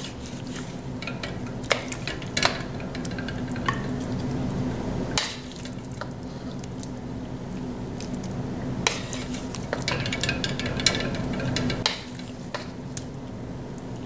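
Wooden spatula scraping and knocking against a wok now and then as stir-fried chicken and broccoli in sauce are lifted out, over a light sizzle from the pan still on medium-high heat. A steady low hum runs underneath.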